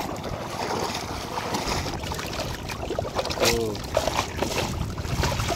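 Footsteps wading and splashing through shallow floodwater, with scattered small knocks and splashes. There is a short voice-like call about three and a half seconds in.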